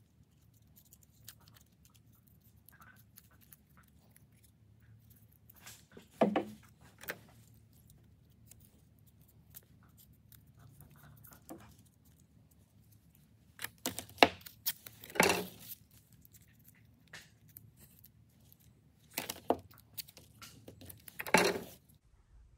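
Tape being pulled off the roll and torn into small pieces, with rustling as it is pressed over the ports of a circuit board and the wires are handled. The sounds come in short bursts with quiet gaps between them, and are busiest around the middle and near the end.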